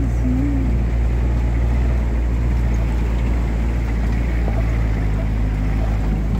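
A vehicle engine running steadily under load, with a deep drone and the rumble of tyres on a rough gravel track as it climbs.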